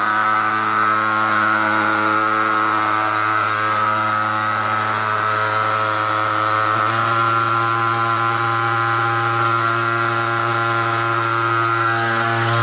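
Portable thermal fogger's pulse-jet engine running as it sprays fog, a loud steady pitched drone. Its pitch shifts slightly about halfway through.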